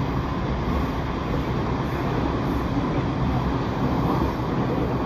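Passenger train running past below and away along the line: a steady, loud rumble of wheels on the rails.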